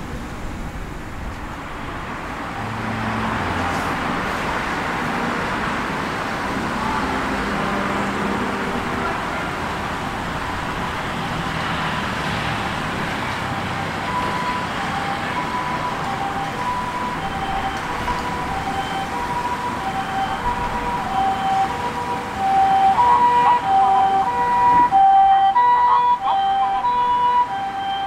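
Road traffic noise with a vehicle passing, then from about halfway an ambulance's two-tone siren alternating between a higher and a lower note, getting louder near the end.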